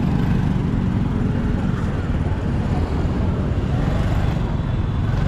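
Steady road traffic noise: engines of cars and motorcycles running.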